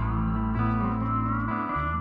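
Background music led by guitar, with held bass notes and a gliding guitar line.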